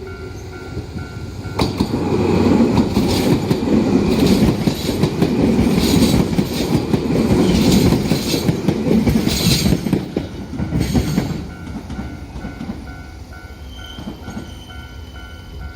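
Enshu Railway electric train running through a level crossing, loud for about ten seconds with repeated clacks of the wheels over the rail joints. Before and after the train, the crossing's warning bell rings in a steady repeating pulse; it is buried while the train goes by.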